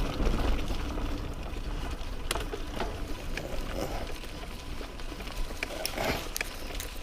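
Mountain bike rolling along a dirt trail: a low rumble from the ride, with scattered sharp clicks and rattles from the bike.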